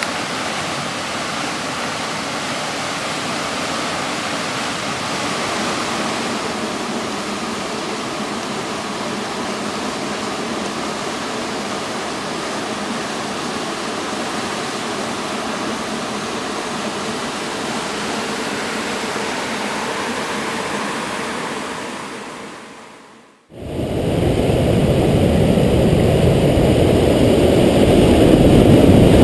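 Floodwater pouring over a low-head dam: a steady rushing and churning of water that fades out near the end. A louder, muffled low rumble of water follows, heard through a GoPro's waterproof housing at the water's surface.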